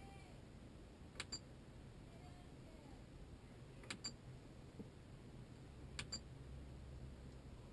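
Faint pairs of sharp clicks, each pair a split second apart with a short high ping, three times about two to three seconds apart, over a low steady hum.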